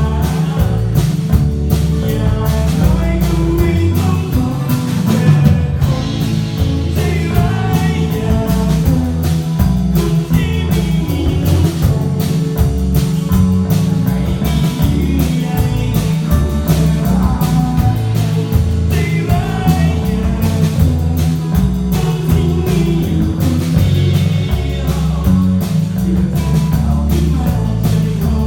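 A live band playing a rock song, with electric guitar and a drum kit keeping a steady beat.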